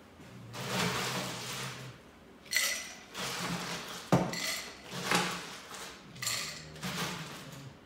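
Glassware and bar tools clinking and clattering on a bar counter in a string of short bursts, with a sharp knock about four seconds in.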